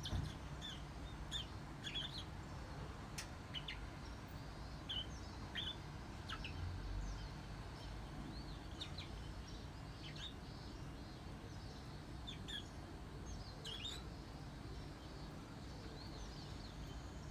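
Bourke's parakeet calling with short, high chirps and tweets, some sliding up or down in pitch, coming irregularly and thinning out near the end, over a steady low hum.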